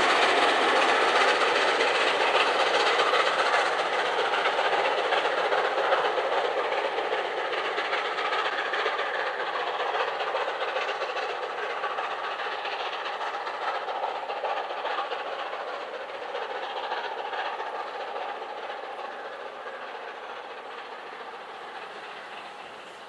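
Steam-hauled express train, LNER A4 locomotive 4464 'Bittern' and its coaches, running away from the listener. The rumble and clatter of the wheels on the rails fade steadily into the distance.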